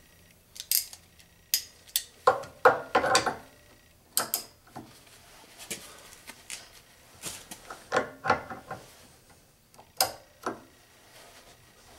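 Irregular metal clicks, clinks and scrapes of DeWalt Knipex-style adjustable pliers being set and clamped onto the head of a grade 8 bolt held in a bench vise. The jaws struggle to bite the hard bolt as it is turned.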